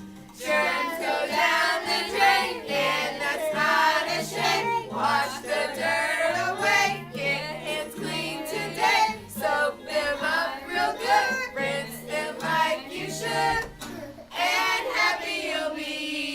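A song: voices singing over a line of bass notes.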